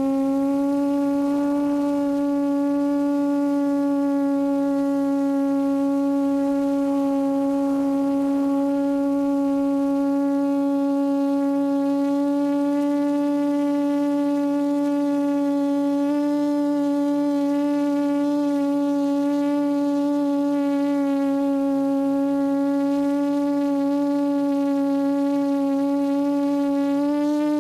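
QAV400 quadcopter's Lumenier brushless motors and APC 8x4.5 propellers humming at a steady pitch while hovering, with small shifts in pitch about halfway through and near the end.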